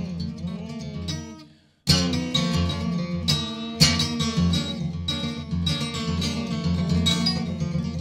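Acoustic guitar picked and strummed fast, with dense clusters of notes and bent strings. It dies away to a brief silence about a second and a half in, then comes back in with a loud strum and a sharp accented stroke a couple of seconds later.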